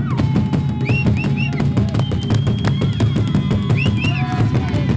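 Traditional Zulu drums beaten in a fast, driving rhythm for the dance, with high, sliding tones and a few long held high notes over them.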